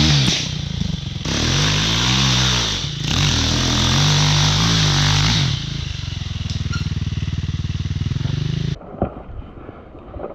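Enduro motorcycle engine revving up and dropping back twice, then running steadily at lower revs before cutting off suddenly near the end.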